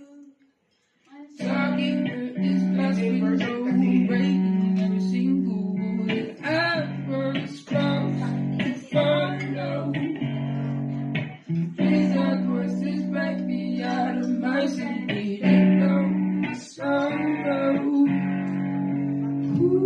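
Electric guitar played in chords with a clean tone, coming in about a second and a half in after a brief silence, with a voice singing a melody over it.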